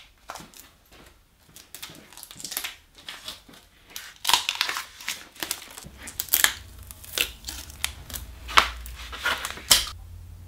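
Tape being pulled off the roll and wrapped around a wooden joint, with plastic sheeting crinkling: a run of short rasping tears and crackles, sparse at first and denser and louder from about halfway.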